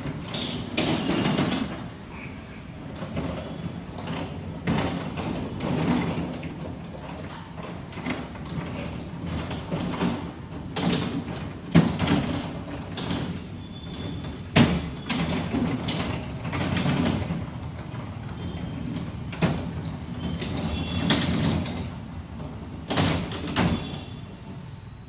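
Automatic sectional side-sliding garage door closing. The panels run along the track with an uneven rumble and a string of sharp clunks, the loudest about halfway through and near the end.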